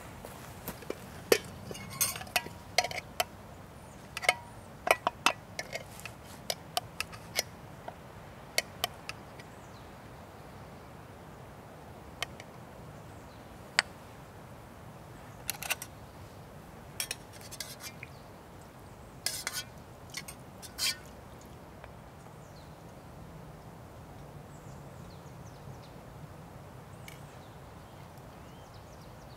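Camp cookware being handled: a string of separate clinks and knocks of pots, lid and utensils, some with a short ring, then only an occasional faint tap after about twenty seconds.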